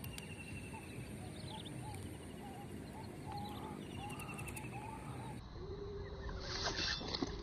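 Outdoor ambience of wild animal calls: many short chirps repeating over a steady background, with quick trills higher up. About five seconds in, the sound changes to a steadier tone with a few sharp clicks.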